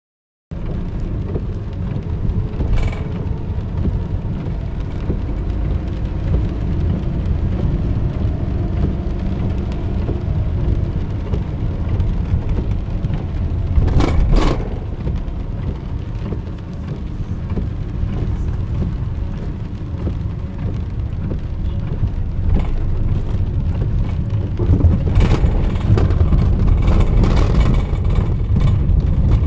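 A car driving on wet roads, heard from inside the cabin: a steady low rumble of engine and road noise, with a few brief knocks and clicks, the loudest about halfway through.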